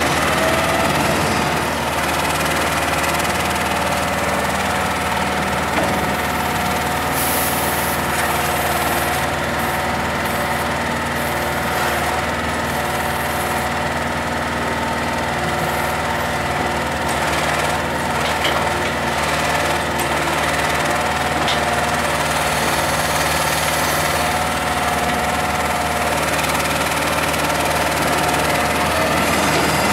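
Heavy lorry's diesel engine running steadily to drive a truck-mounted hydraulic loader crane, with a few faint knocks.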